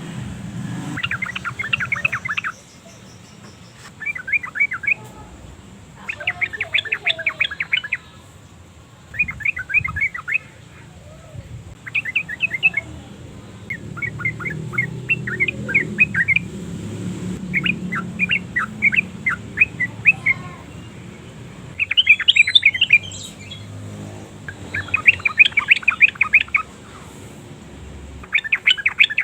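Yellow-vented bulbul singing in repeated short bouts of rapid, bubbly chattering notes, each bout lasting a second or two with brief pauses between.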